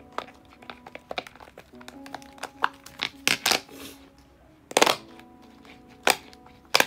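Silicone bubbles of a flower-shaped simple dimple fidget toy pushed down one after another, each giving a sharp pop, at an uneven pace, the loudest about halfway through and near the end. Soft background music with held notes underneath.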